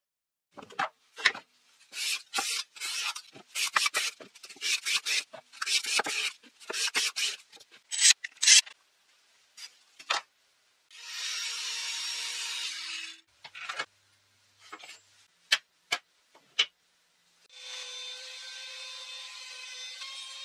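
Short, irregular strokes of wood rubbing and scraping for the first half, broken by abrupt silences. Then a trim router runs steadily twice, briefly near the middle and again for the last few seconds.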